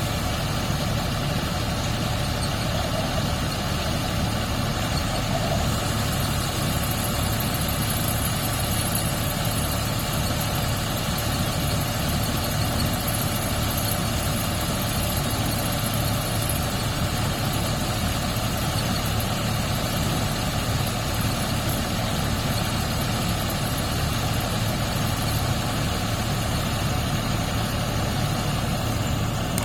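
The engine of rice-harvesting farm machinery running steadily at an even speed, a constant low hum with no change in pitch or loudness.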